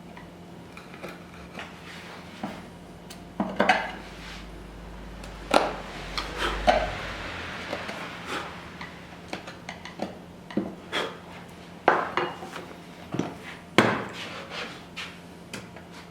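Hand woodworking tools working wood: irregular sharp knocks and metallic clinks, one at a time with uneven gaps, over a faint steady hum.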